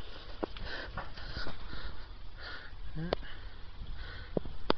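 Soft, irregular footsteps on brick paving and breathing close to the microphone, with a few small clicks over a low, steady rumble.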